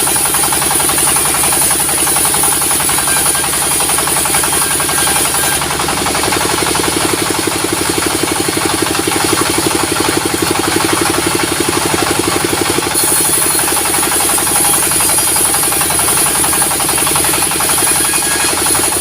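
Diesel-powered sawmill running steadily with a rapid, even engine beat. A high hiss rides on top, stops about five seconds in and returns about thirteen seconds in.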